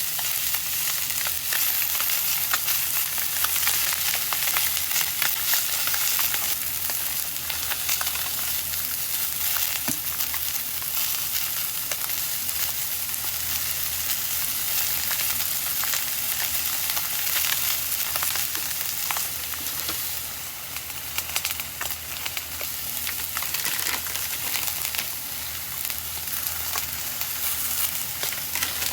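Food sizzling and crackling in hot oil in a frying pan, with stirring through it; it eases off slightly about two-thirds of the way through.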